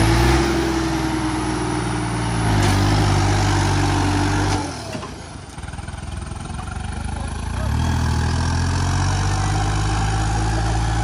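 Swaraj 855 FE tractor's three-cylinder diesel engine running hard under load while it drags disc harrows through wet soil. The sound drops away for about three seconds in the middle, then the engine comes back steady.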